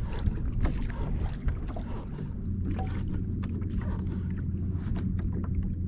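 Wind and lapping water at a small kayak on open sea, with scattered small ticks. A steady low hum comes in about two seconds in.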